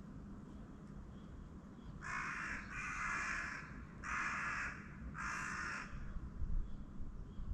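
A crow cawing four times in quick succession, harsh calls each about half a second long, over a low steady background rumble.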